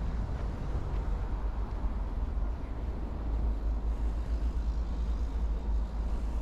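Steady low rumble of road traffic on a city street, with engine and tyre noise.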